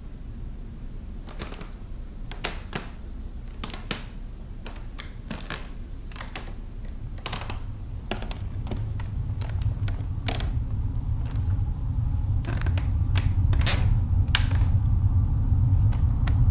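Scattered, irregular clicks and taps, the strange noises coming from an old wooden chest, over a low rumbling drone that grows steadily louder from about halfway through.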